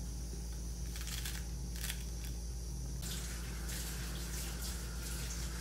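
A knife cutting through a bunch of wet fresh herbs held over a plastic tub: a few crisp cuts about one and two seconds in, then denser crackly cutting and rustling from about three seconds on. A steady low hum underneath.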